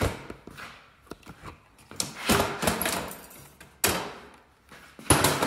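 A few scattered knocks and thumps with scuffing between them, from handling and movement while the camera is carried around an axle housing on a wooden stand.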